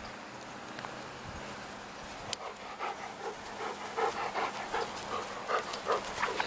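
Golden retriever and beagle puppy at play: quick, irregular bursts of dog panting and small puppy noises, starting a little before halfway and growing busier toward the end.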